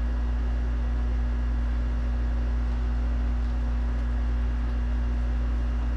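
Steady low hum with an even hiss and a faint constant tone above it, unchanging throughout, with no distinct sips or knocks standing out.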